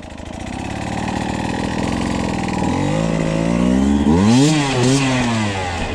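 Enduro motorcycle engine revving hard as the rider takes a jump: the engine note builds over the first few seconds, then rises and falls sharply in pitch around four to five seconds in as the throttle is worked through the jump.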